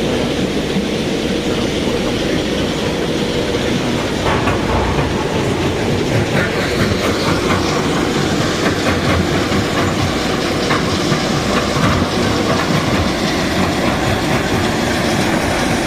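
A loud, steady mechanical rumble with a rattling clatter running through it.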